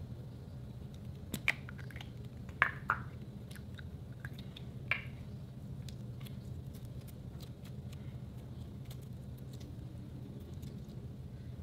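Clear orange glitter slime being squeezed and stretched by hand, with wet sticky clicks and pops. A few sharper snaps and pops come in the first five seconds, then softer clicking, over a steady low hum.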